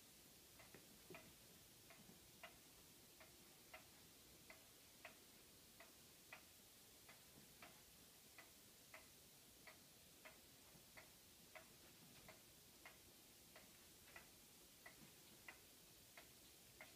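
Faint, regular ticking, about three ticks every two seconds, against near silence.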